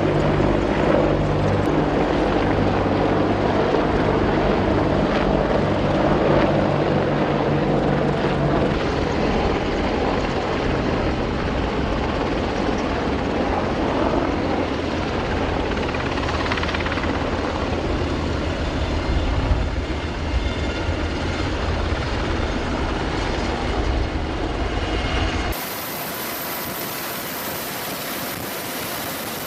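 Military helicopters running, a loud, steady mix of rotor beat and turbine engine noise. About 25 seconds in it cuts abruptly to a quieter, steady hum.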